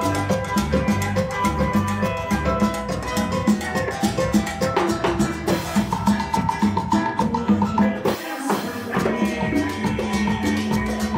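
Live Latin band playing salsa-style music, with congas, drum kit, acoustic and electric guitars and bass. The bass and low drums drop out briefly about two-thirds of the way through, then come back in.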